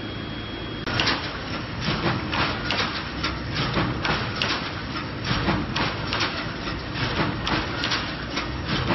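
Reinforcing-mesh resistance welding machine in production, clattering with a quick, uneven run of sharp knocks, about three a second, over its running noise. For the first second there is only a steady machine hum with a thin high whine.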